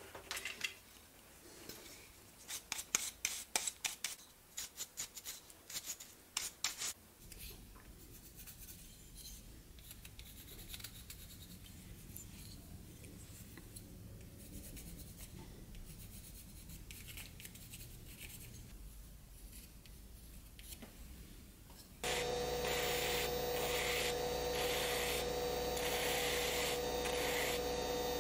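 Quick scratchy strokes of a pencil drawing on a small wooden carving, softer in the middle stretch. About three-quarters of the way in, a small handheld rotary tool switches on and runs steadily with a whine, louder than everything before it.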